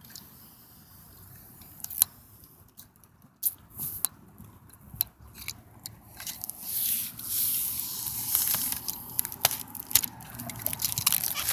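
Protective plastic sheeting being peeled off a tubular skylight: crinkling and crackling with scattered sharp clicks, turning into a denser tearing rustle about halfway through.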